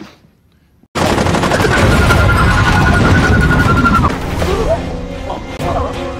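TV action-scene soundtrack: about a second in, a loud burst of rapid gunfire cuts in over a dramatic music score. After about four seconds the gunfire eases and the score carries on.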